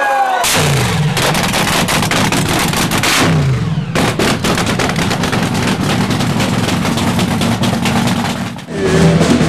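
Dragster engine running loud with a rapid, crackling rattle of firing pulses. The pitch drops back twice, about a second in and after about three seconds. Near the end it is cut off by drum-led music.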